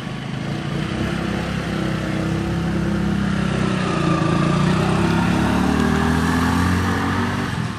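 A motorcycle engine running close by, growing louder over the first few seconds, its pitch shifting, then dropping away abruptly near the end.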